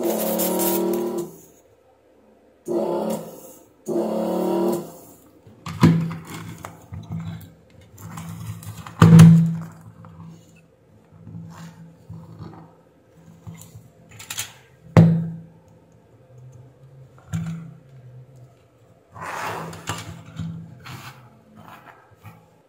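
Workbench handling noise while parts are desoldered from a computer power supply board: several sharp knocks and clicks, the loudest about nine and fifteen seconds in, with a low, broken tone between them.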